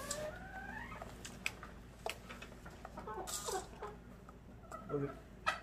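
Hens clucking softly, with a short rising call about a second in and a few more brief calls later. Light rustling and a few small taps as bedsheets are handled.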